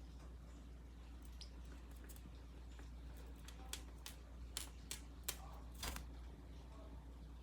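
A pet parrotlet making a few faint, short chirps among scattered light clicks and taps, the clicks clustering in the second half, over a steady low room hum.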